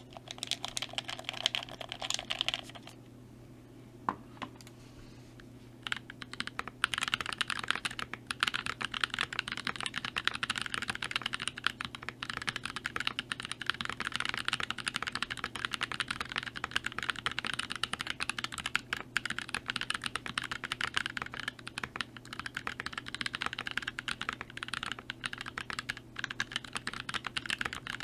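Fast typing on a custom mechanical keyboard with Gazzew Boba U4T tactile switches in a stacked acrylic Alice-layout case, fitted with GMK keycaps. A short burst of keystrokes, a pause of about three seconds broken by a single click, then steady fast typing from about six seconds in.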